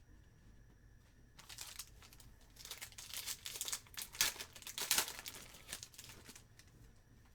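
Foil trading-card pack wrapper crinkling and tearing as it is ripped open and handled, in a run of crackles about a second and a half in, loudest near five seconds, then stopping.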